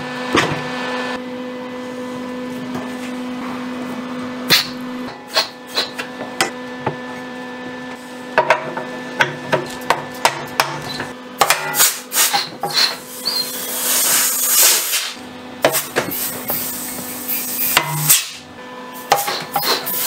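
A steel backhoe swing pivot being swung by hand on its welded base, giving many sharp metal knocks and clanks. They come most thickly in the second half. A steady low hum runs underneath.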